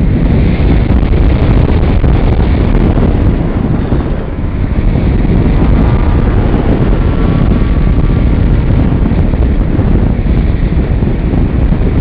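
Wind and airstream rushing over the microphone of a wing-mounted camera on a radio-controlled model plane in flight: a loud, steady low rush. A faint thin whine comes through briefly around the middle.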